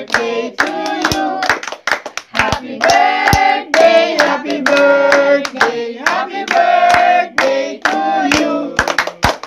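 A family group of adults and children singing a birthday song together, with hand claps scattered through the singing.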